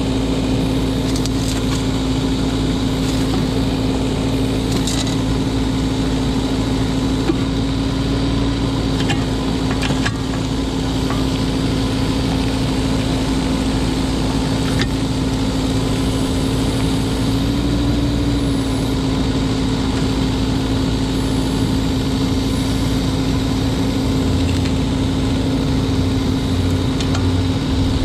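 Kubota K008-3 mini excavator's small three-cylinder diesel engine running steadily while the boom, arm and bucket are worked hydraulically. There is a steady hum and a few light knocks.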